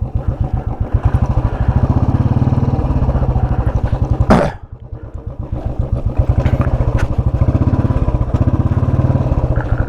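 Royal Enfield single-cylinder motorcycle engine running at idle with an even, pulsing beat. A short loud burst comes about four seconds in.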